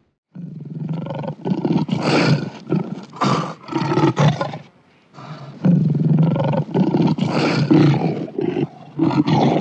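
Lion roaring in two long, rough, pulsing bouts with a short break between them.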